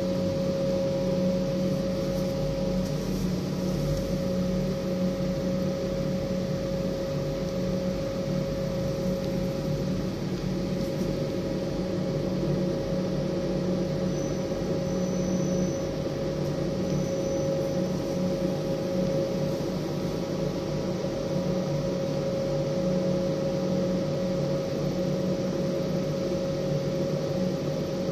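Oral dissolving film strip machine running: its electric motors give a steady hum with a constant mid-pitched tone.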